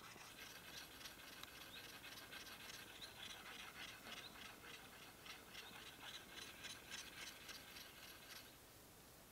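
Faint, quick scraping strokes of a blade shaving a wooden stick, several a second, stopping shortly before the end.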